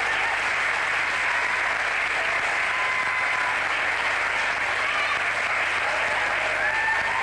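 Theatre audience applauding, a dense, steady clapping for the cast at the curtain call.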